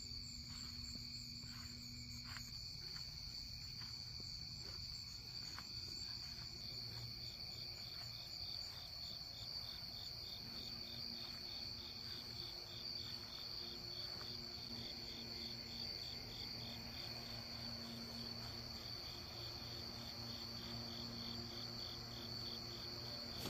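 Crickets and other night insects chirping: a continuous high trill with a regular pulsed chirp beside it. A few faint clicks come in the first seconds.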